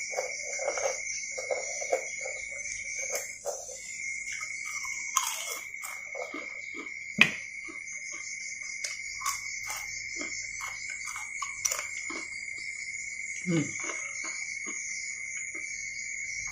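Eating sounds from a bowl of meatball noodle soup: chewing and slurping, with scattered spoon clicks and one sharp clink about seven seconds in. Under them runs a steady high-pitched insect trill.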